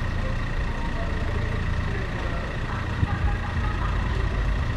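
Steady low rumble of a bicycle ride through city streets, the kind of wind and road noise a moving camera picks up, with a thin steady high tone over it and a brief bump about three seconds in.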